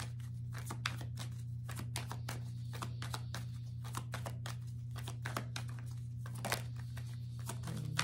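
Tarot deck being shuffled by hand: a continuous run of quick card clicks and crackles, over a steady low hum.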